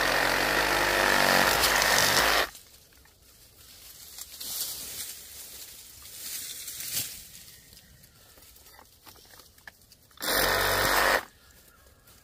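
Bauer 20V brushless compact reciprocating saw with a 9-inch Diablo pruning blade running as it cuts through brush. It runs in two bursts: about two and a half seconds at the start, and a shorter one about ten seconds in.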